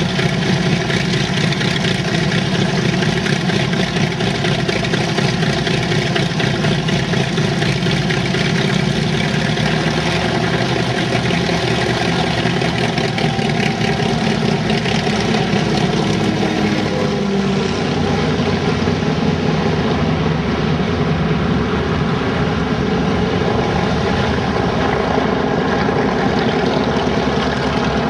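Grumman F7F Tigercat's twin Pratt & Whitney R-2800 radial engines running at low power as the aircraft taxis, a steady, even engine sound with propeller noise.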